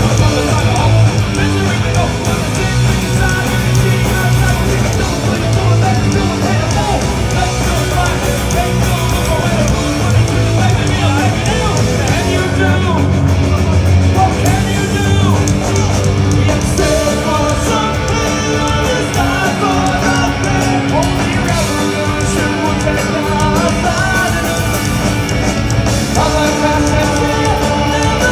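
Punk rock band playing live and loud: a singer shouting into the microphone over electric guitar and drums.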